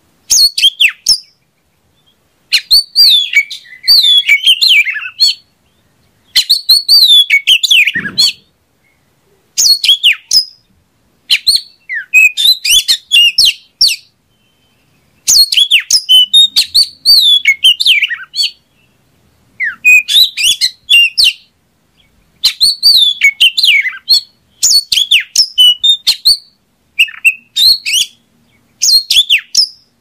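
Oriental magpie-robin (kacer) singing: a steady run of short song phrases, each a quick jumble of varied whistles and chirps lasting a second or two, with brief pauses between them.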